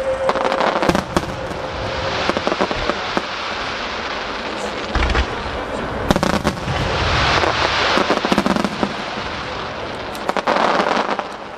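Aerial firework shells bursting in quick succession: many sharp bangs, with spells of dense hiss and crackle in between.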